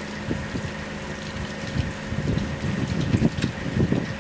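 Tap water running into a concrete sink as soapy hands are rubbed and rinsed under the stream, the splashing getting heavier from about halfway through. A steady hum runs underneath.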